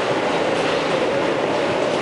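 Inside an R160B Siemens subway car running on elevated track: the steady rumble of wheels on rail and the car's running noise.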